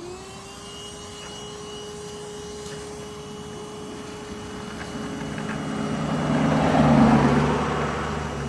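Bee vacuum's motor, just switched on, running at a steady whine. About five seconds in, a louder rushing of air swells in, loudest around seven seconds, then eases off.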